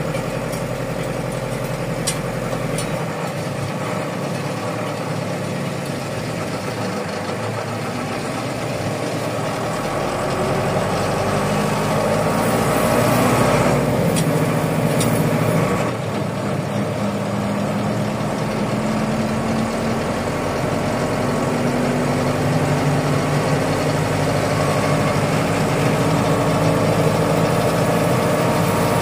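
Truck engine running, heard from inside the cab as the truck gathers speed on a wet road. The engine note climbs slowly, drops suddenly about sixteen seconds in, then climbs again.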